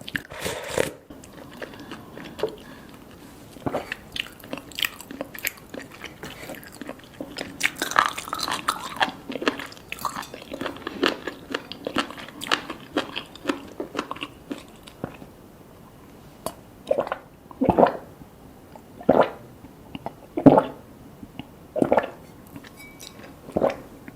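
Close-miked chewing and biting of food, a dense run of small wet clicks. In the latter part, louder chewing strokes come at an even pace, about one every second and a half.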